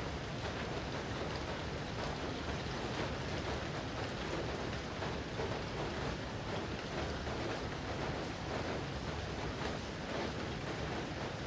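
Steady rain falling: an even hiss with faint patter of drops, unchanging throughout.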